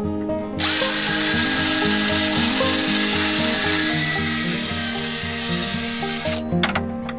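DeWalt cordless circular saw cutting a melamine-faced particleboard shelf to length, starting abruptly about half a second in and stopping shortly before the end. Background music plays underneath.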